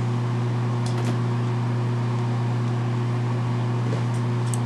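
Steady low electrical hum with a couple of fainter overtones, unchanging throughout. A few faint light clicks about a second in and near the end come from the revolver being handled.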